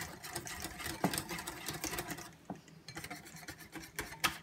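Wire whisk beating a thick egg-and-flour batter in a ceramic bowl: rapid clicking of the wires against the bowl, thinning out about halfway through, with one sharper knock near the end.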